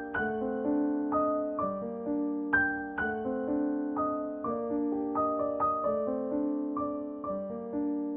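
Background music: a soft piano piece playing a gentle melody over sustained chords.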